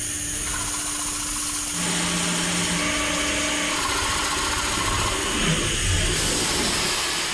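CNC machining center running a boring bar through 6Al-4V titanium under flood coolant: a steady machine hum with a continuous hiss of coolant spray, which grows louder about two seconds in.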